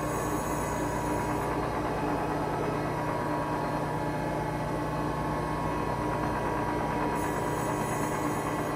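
Sanford Model MG surface grinder running with a steady motor hum while its grinding wheel is dressed with a single-point diamond. A faint high hiss comes for a second or so near the start and again near the end.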